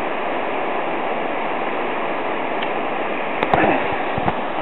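High, swollen mountain stream rushing steadily. A few sharp knocks come about three and a half seconds in, with another near the end.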